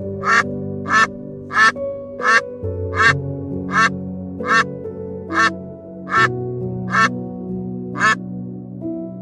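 An animal giving about a dozen short, evenly spaced calls, more than one a second, over soft background music.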